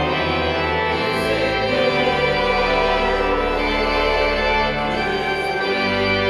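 Parish choir singing slow sustained chords with organ accompaniment, the bass notes changing every second or two.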